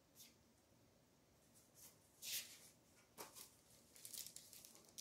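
Pages of a paperback book being flipped: a few soft, brief paper rustles about two seconds in, again around three seconds, and near the end, otherwise near silence.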